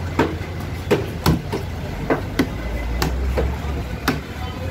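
Heavy knife chopping chunks of trevally on a wooden board: sharp, irregular knocks about two a second, over a steady low hum.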